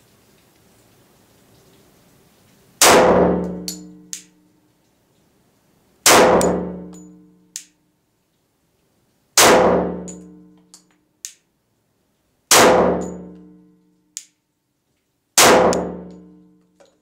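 Five shots from a compensated Glock 24C pistol in .40 S&W, fired slowly about three seconds apart, each ringing and echoing for about a second. A short sharp click follows most shots a second or so later.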